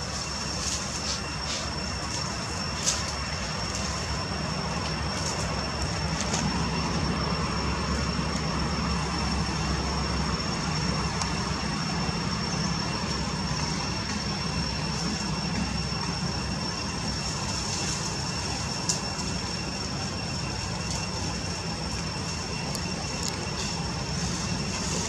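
Steady outdoor background: a continuous low rumble with a thin high-pitched whine held on top. A few faint clicks come near the start and once more later on.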